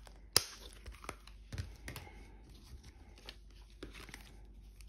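Small stickers being peeled off a plastic sticker sheet: faint crinkling and tearing rustles with scattered small ticks. There is one sharp click just under half a second in.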